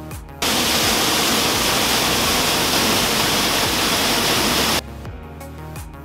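Loud, even roar of Hedge Creek Falls, a waterfall about 35 feet high pouring over a cave. It cuts in abruptly about half a second in and stops just as suddenly near the end. Background music plays under and around it.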